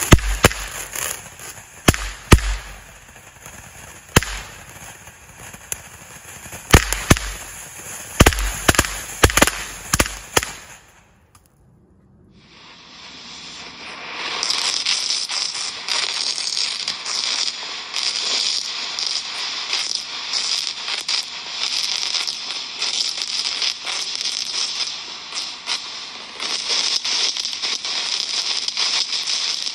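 Firework fountain spraying sparks with sharp cracks and pops for about ten seconds. It cuts off into a moment of silence, then gives way to a steady hiss of sparks spraying.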